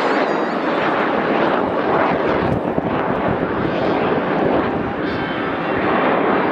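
Several Aermacchi MB-339 PAN jet trainers with Rolls-Royce Viper turbojets flying overhead: a loud, steady jet rush.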